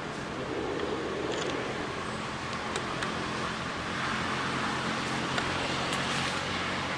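Steady outdoor background noise, an even hiss with a few faint clicks, with no calls from the monkeys.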